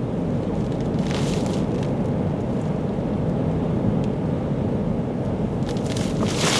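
Storm-force wind blasting the microphone with a steady low rumble, with two short bursts of hiss about a second in and near the end.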